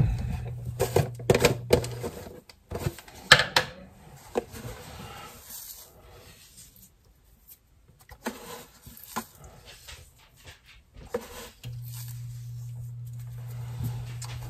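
Clicks and knocks from handling and opening a large glass jar of salt, the loudest about three seconds in, with a few lighter clicks later. A low steady hum stops about two seconds in and comes back near the end.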